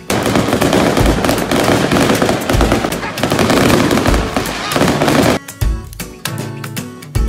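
Fireworks crackling and bursting loudly over a plucked-string music track for about five seconds, then cutting off abruptly, leaving only the strummed music.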